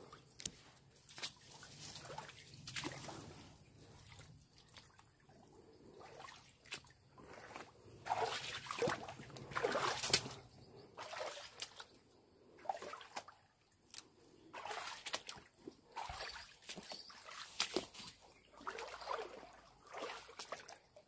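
Footsteps splashing and sloshing through shallow water and mud, coming in irregular, uneven steps.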